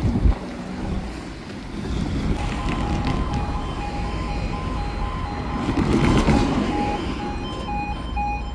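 A level crossing warning alarm starts about two seconds in: an electronic two-tone yodel alternating rapidly, sounding as the amber road lights come on to warn that a train is approaching. Road traffic passes, loudest around six seconds in.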